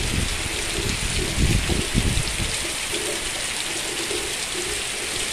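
Heavy tropical downpour: a steady hiss of rain, with uneven low rumbles underneath that swell a couple of times.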